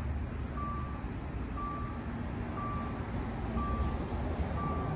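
A 2013 Dodge Dart's warning chime beeping a short high tone once a second, over a steady low rumble.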